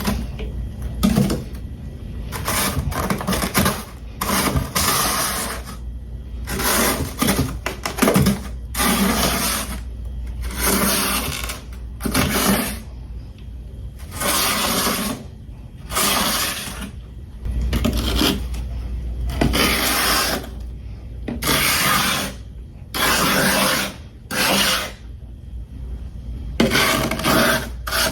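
Freezer frost being bitten and chewed close to the microphone: repeated crisp crunches, roughly one a second, over a steady low hum.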